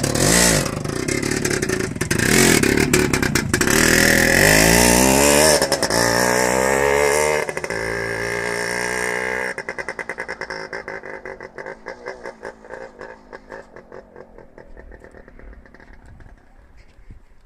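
WSK 175 Kobuz two-stroke single-cylinder motorcycle revving and pulling away, the engine note rising in pitch with drops between gears. Just under ten seconds in it fades sharply to a faint, pulsing putter as the bike rides off.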